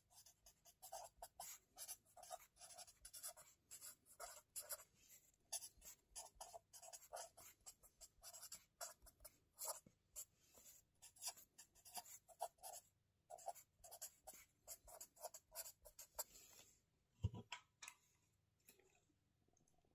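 Close-up handwriting on lined spiral-bound notebook paper: a quick, irregular run of short scratching strokes. A single soft thump comes near the end and is the loudest sound.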